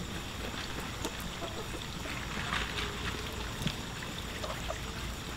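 Backyard hens clucking softly and pecking at dry soil, with a few faint clucks and small scratchy clicks over a steady low rumble.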